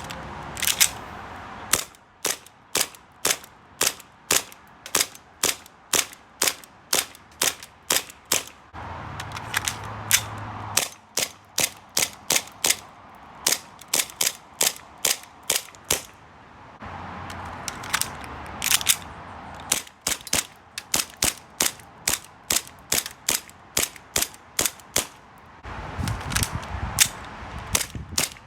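Cybergun/AW Custom Colt 1911 gas-blowback airsoft pistol being fired in quick semi-automatic strings. Each shot is a sharp crack as the slide cycles, coming about two to three a second, with short pauses between strings.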